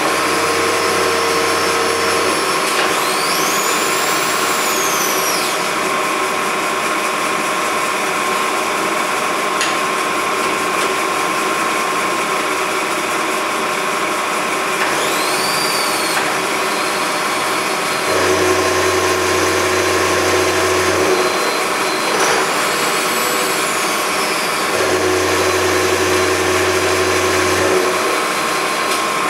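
Milling machine running with an end mill cutting a slot in a small metal part: a steady mechanical whine with a constant tone. Three times a higher whine glides up and back down over a couple of seconds, and a lower hum switches on and off for a few seconds at a time.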